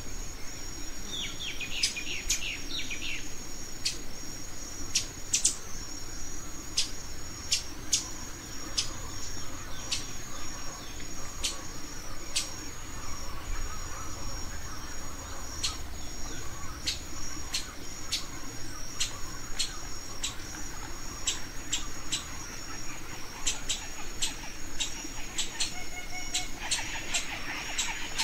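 Forest ambience: a steady high-pitched insect trill, birds chirping briefly about two seconds in and again near the end, and scattered sharp clicks.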